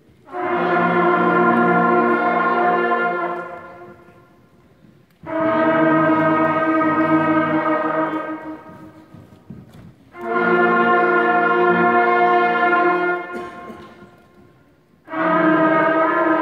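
Sixth-grade beginning band playing long held notes together, each cut off after about three seconds with a short pause before the next. There are three such notes, and a fourth begins near the end.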